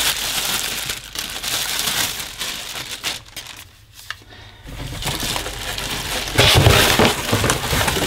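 Plastic packaging crinkling and rustling as the vacuum's parts are lifted from the box and unwrapped. It dies down for a moment in the middle, then comes back louder near the end.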